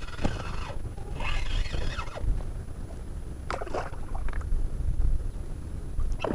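Wind buffeting the microphone and water lapping at a kayak, with a few brief sharp sounds.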